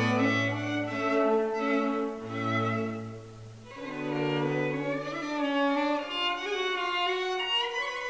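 Background music on bowed strings: a violin-like melody over long, low held notes.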